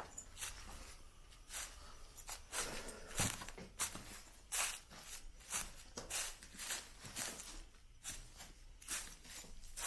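Slow footsteps on dry leaf litter and dirt, about one step a second, somewhat irregular.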